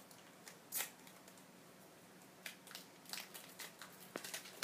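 Plastic wrapper of a Magic: The Gathering booster pack crinkling in a few short, scattered rustles as it is worked open. The pack is stubborn to open.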